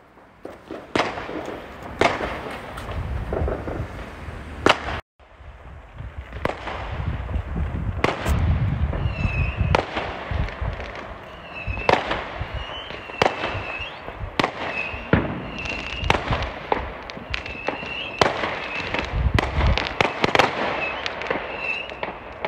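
Fireworks going off: repeated sharp bangs and cracks, some with a low rumble. From about nine seconds in, short high chirps repeat roughly once a second.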